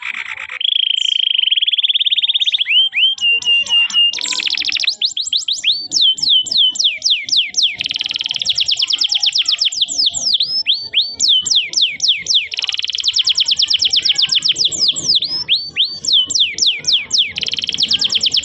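Domestic canary singing: a held whistled note about a second in, then long fast trills of repeated downslurred whistles.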